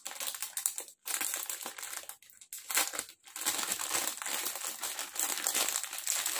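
A clear plastic packaging bag crinkling and crackling as it is handled, with short pauses about one, two and three seconds in.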